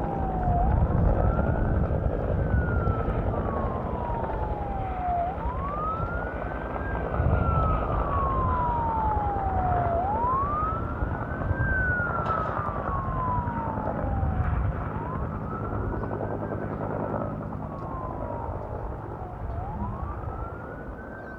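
An emergency-vehicle siren wailing in slow cycles, each a quick rise in pitch and then a long, slow fall, repeating about every five seconds over a steady low rumble.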